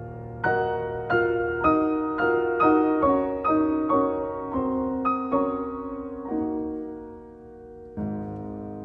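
Slow, tender solo piano music: single notes struck about twice a second in a gently falling line, with a long held note near the end before a new chord.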